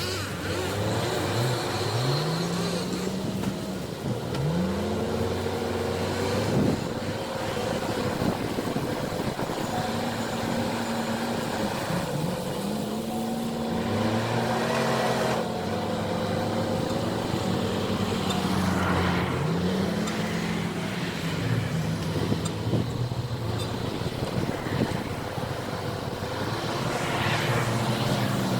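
JCB 4CX backhoe loader's diesel engine working under hydraulic load. Its pitch rises and falls back again and again as the digging controls are worked.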